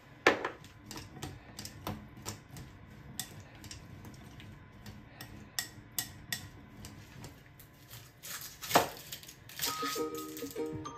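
Plastic tongs clicking and tapping against a glass bowl while tossing salted halved green and cherry tomatoes: irregular light clicks, several a second. Near the end comes one louder knock, then soft background music with chime-like notes.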